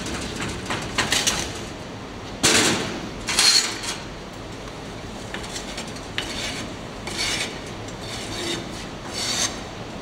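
A hand rammer packs foundry sand into a molding flask with a few quick thuds at the start. A straight bar is then dragged across the top of the flask to strike off the excess sand, giving a series of rasping scrapes, the loudest two about two and a half and three and a half seconds in.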